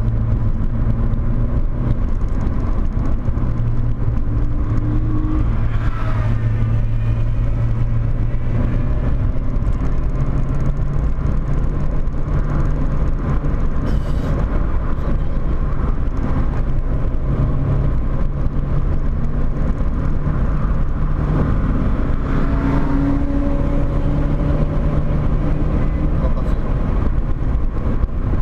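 A Volkswagen Corrado 1.8 16V's four-cylinder engine runs hard under load, heard from inside the cabin over road and wind noise. The engine note steps up in pitch about ten seconds in and holds higher.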